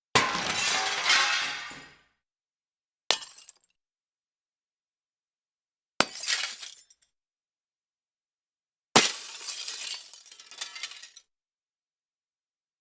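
Four separate glass-breaking crashes, one every three seconds or so. Each starts with a sharp impact followed by shards tinkling. The first and last run on for about two seconds of falling glass, and the middle two are short breaks.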